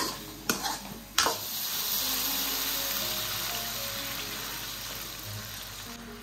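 Steel spoon scraping and knocking against an aluminium kadai as a thick egg masala is stirred, a few sharp clanks. From about a second in, water is poured into the hot pan and sizzles with a steady hiss that slowly dies down.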